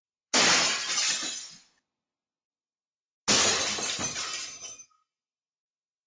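Recorded breaking-glass sound effect: glass shatters twice, about three seconds apart, each a sudden crash that tails off over about a second and a half.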